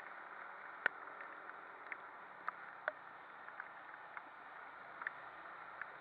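Steady rushing noise of a scooter riding through heavy rain on a soaked road, with scattered sharp ticks of raindrops striking the camera.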